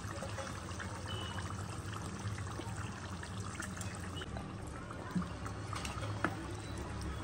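Chicken drumsticks in masala gravy simmering in a non-stick pan: a steady soft bubbling and crackle. Near the end a metal slotted spoon knocks lightly against the pan a few times as the drumsticks are turned.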